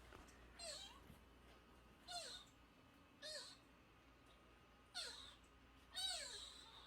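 A very young kitten mewing: five short, high-pitched cries, each falling in pitch, about a second apart, faint.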